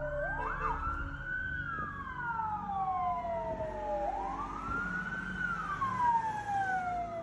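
An emergency-vehicle siren wailing: two overlapping tones that each rise quickly and then fall slowly, with a new rise about four seconds in.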